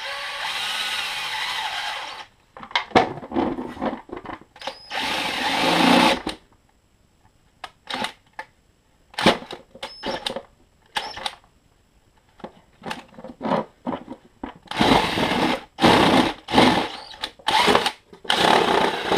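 Cordless drill boring a 20 mm hole through a generator's plastic side cover. It runs in several spells of a few seconds each, with a string of short trigger spurts in the middle as the bit works through the plastic.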